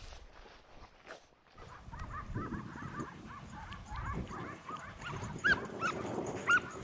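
Boar-hunting dogs yelping and barking in quick, high yips. The yips start about a second and a half in and grow louder near the end.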